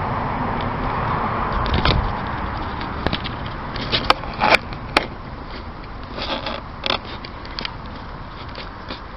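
A cat chewing and crunching on rabbit remains: a series of sharp crunches and clicks, bunched about four to five seconds in and again a little later, over a steady rushing noise that fades after the first couple of seconds.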